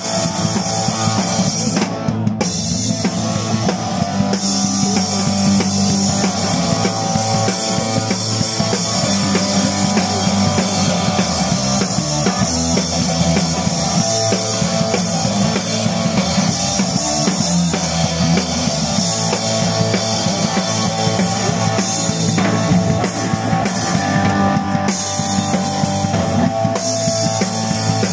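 Rock music played by a band: a drum kit driving a steady beat under electric guitar.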